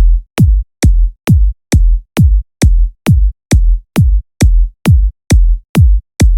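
Electronic music: a lone drum-machine kick drum on a steady beat, about two hits a second, each a sharp click falling quickly into a deep boom.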